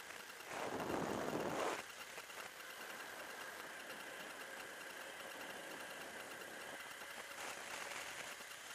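Motorcycle engine running steadily while riding at road speed, with a faint whine. About half a second in there is a louder burst of noise lasting a little over a second.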